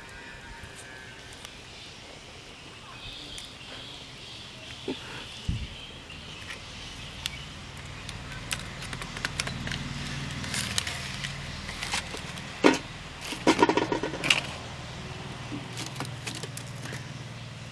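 Wood fire in a stove crackling and popping, with knocks of firewood sticks being pushed into the fire and a burst of louder clicks and clatter about three-quarters of the way through. A low steady hum comes in about halfway.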